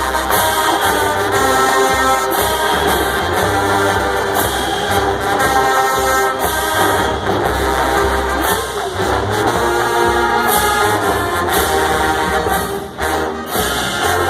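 Marching band playing loudly in rehearsal: sustained brass chords over drums, with repeated sharp strikes. There is a brief drop in level near the end before the full band comes back in.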